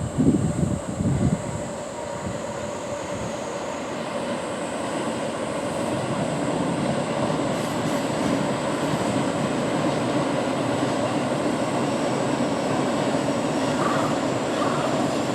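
JR East train running on the line, a steady rumbling noise that slowly grows louder, with a thin high steady whine over it. A few low thuds in the first second or so.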